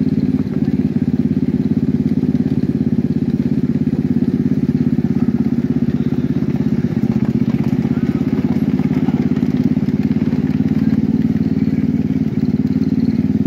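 Small engine of a ride-on miniature train running steadily as it pulls the riding cars, with a rapid, even exhaust pulse.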